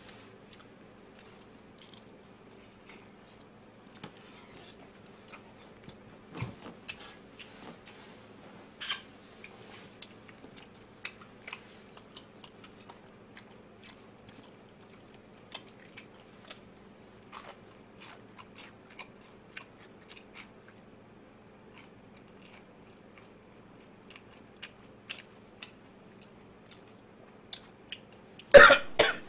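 Crunching and chewing of crispy fried chicken in the mouth: scattered crisp bites and chews, with a short, much louder burst of sound near the end, over a faint steady hum.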